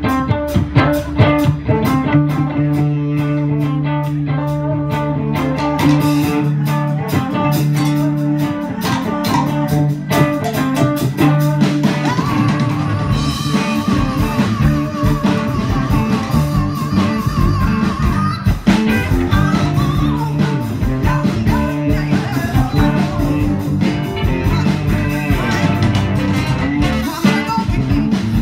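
Live band playing, with saxophone, trumpet, trombone, keyboard and guitar, and a woman singing. About halfway through a long note is held with vibrato for several seconds.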